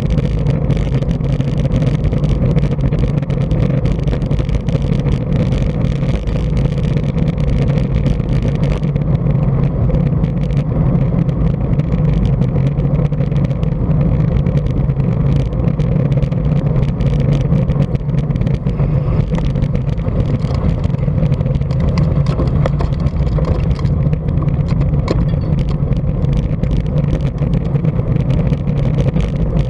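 Steady wind rush buffeting a bike-mounted camera's microphone while the road bike rolls along at speed, with the tyres humming on the rough road surface and small ticks from the road.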